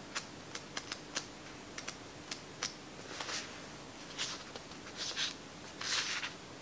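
Book pages being flipped and handled: a run of small light clicks and taps, then several short soft paper swishes as pages are turned over.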